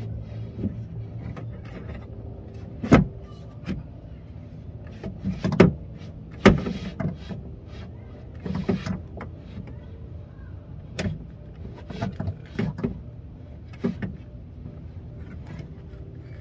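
Irregular metal knocks and clanks inside a car door shell as the window regulator is unbolted and worked loose, several of them sharp and loud, over a steady low hum.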